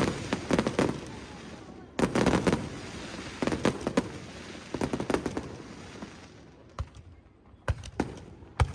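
Aerial fireworks bursting: quick volleys of sharp crackling bangs in the first half, thinning to a few single reports near the end.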